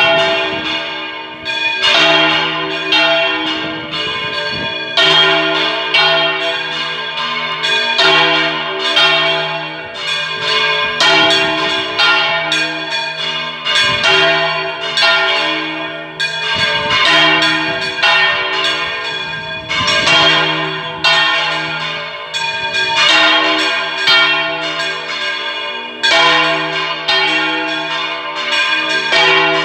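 Three church bells (81 kg tuned to G, 244 kg to C and 927 kg to F) rung by full-circle swinging (volteo), each bell striking as it turns over. The strokes overlap unevenly, roughly one a second, ringing on over a steady low hum.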